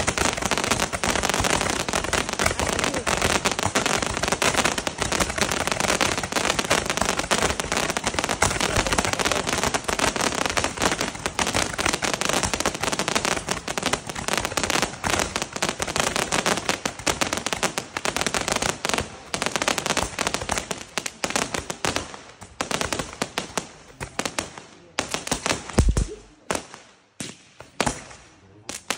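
A 438-shot fireworks cake firing: a dense, rapid rattle of shots and crackle that thins into scattered single shots over the last several seconds as the cake burns out, with one heavier thump near the end.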